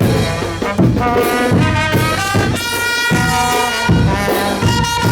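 Brass band music: trumpets and trombones playing long held notes over a low drum beat.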